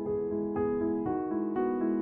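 Background piano music: a steady run of melodic notes changing several times a second.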